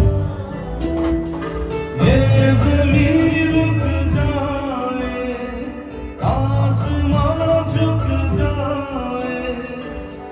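Music with a singing voice over a rhythmic beat.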